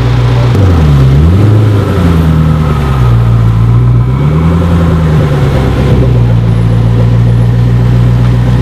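Koenigsegg Agera R's twin-turbo V8 pulling away slowly in traffic at low revs. Its note dips and climbs a couple of times in the first five seconds, then settles to a steady low drone.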